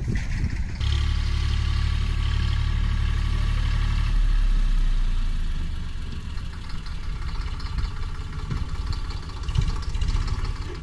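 Tractor diesel engine running, heavy and steady at first, then dropping back to a lower, rougher run about five seconds in.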